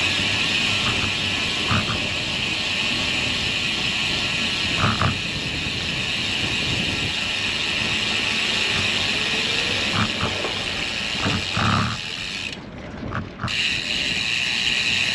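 Road bicycle coasting, its rear freewheel hub ticking so fast it runs together into a steady buzz, over tyre and road noise with a few light knocks. The ticking stops for about a second near the end, then resumes.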